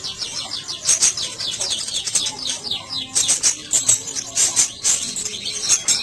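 Black sunbird singing a fast, continuous twittering song: rapid runs of short high chirps, each falling quickly in pitch.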